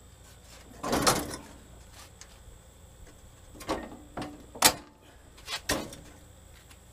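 Heavy steel John Deere Model 31 rototiller being manhandled into its mounts on a garden tractor: a drawn-out scraping clunk about a second in, then a run of short metal knocks and clanks, the sharpest near the middle.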